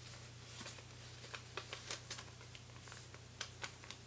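Sheet of origami paper being folded and tucked by hand: scattered light crinkles and clicks of paper, over a steady low hum.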